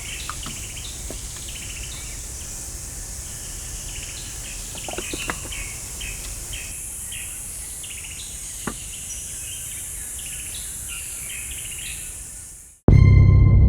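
Outdoor nature ambience: repeated short chirps from birds or insects over a steady high insect hiss, with a few faint knocks. Near the end it cuts off abruptly and a loud, deep, ringing musical boom like a gong hit begins.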